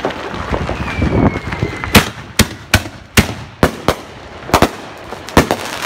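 Fireworks going off: a short whistle that falls slightly in pitch, then a quick run of about eight sharp bangs over the next three and a half seconds.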